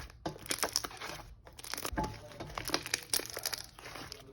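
Clear glue slime being squished and stretched by hand, giving a dense run of small pops and crackles from air bubbles bursting.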